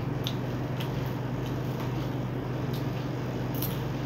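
A steady low hum with a few faint, sharp clicks scattered through it.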